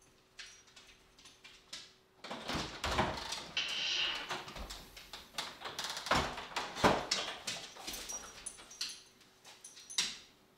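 A front door opening about two seconds in, followed by a paper bag rustling, a few sharp knocks and a dog moving about as it greets the person coming in.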